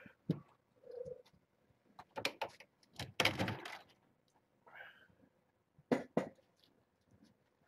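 Handling noises in a kitten pen: scattered knocks and thuds, with a burst of rustling about three seconds in, and a few short faint cries among them.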